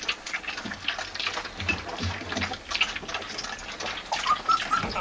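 Sheepdog puppies lapping milk from a dish: quick, irregular wet licking and slurping. A few short, high squeaks come near the end.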